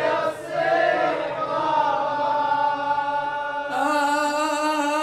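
Male voice chanting a Shia mourning elegy unaccompanied, drawing out long held notes. A little past halfway it moves to a new held note.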